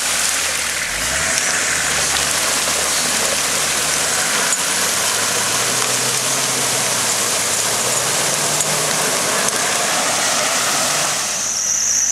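Nissan Patrol GR 4x4 driving through a muddy pool, its engine pulling with rising and falling pitch under a dense rush of splashing, churning water around the wheels. The sound changes abruptly near the end.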